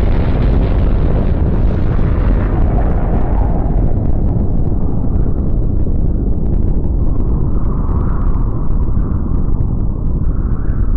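Nuclear explosion sound effect: a heavy, sustained rumble following the blast, its upper hiss dying away over the first few seconds while the deep rumble rolls on with faint crackles.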